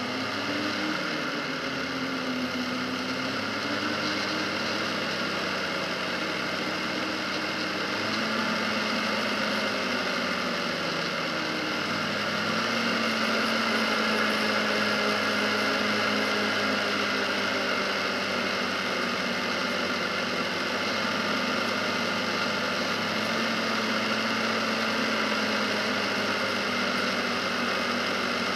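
Polaris Sportsman 570 ATV's single-cylinder engine running under way at a steady cruise on pavement. It picks up speed in the first couple of seconds and again about twelve seconds in, over a steady rush of road and wind noise.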